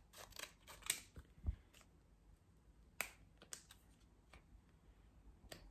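Scissors snipping open a small face-mask sachet, then the packet being handled: faint, scattered sharp clicks and crinkles, with a soft low thump about a second and a half in.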